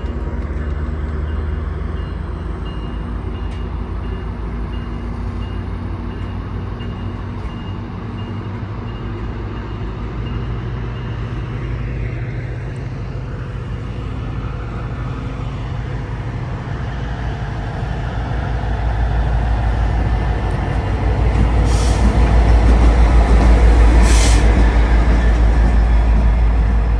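A train running by with a steady low rumble that grows louder over the last third, and two short bursts of air hiss near the end.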